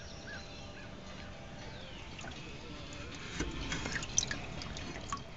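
Water dripping and splashing in a boat's live well. A cluster of sharp drips and light knocks comes a little past halfway.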